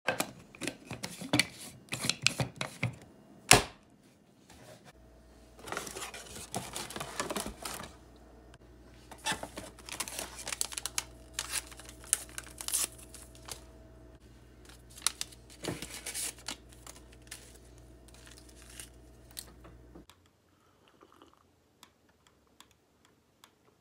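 Rustling, crinkling and clicking handling noises, irregular and close to the microphone. A low steady hum starts about five seconds in and cuts off suddenly at about twenty seconds, after which it is nearly silent.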